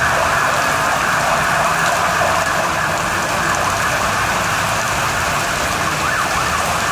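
Fire appliance siren wailing up and down, weaker in the middle and stronger again near the end, over the steady hiss of heavy rain.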